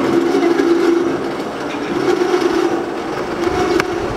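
Electric drive of a 3-ton pillar jib crane running as the boom slews, a steady hum over a rough mechanical noise, with a sharp click near the end.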